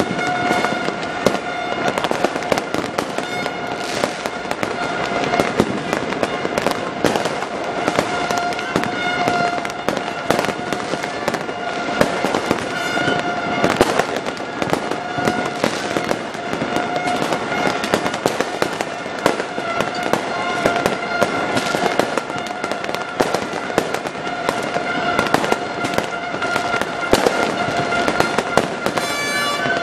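Many fireworks bursting continuously, a dense, irregular run of bangs and crackles. A steady horn-like tone sounds on and off over them.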